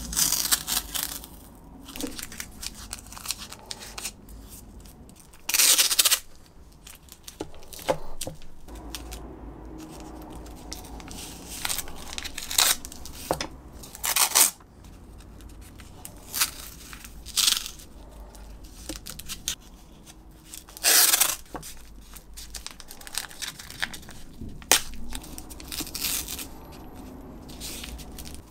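Paper masking tape being ripped off the roll in short, loud pulls every few seconds and torn off by hand, with quieter rustling and crinkling of the tape between pulls.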